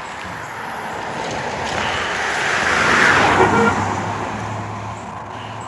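A motor vehicle passing on the road: engine and tyre noise building to a peak about three seconds in, then fading away.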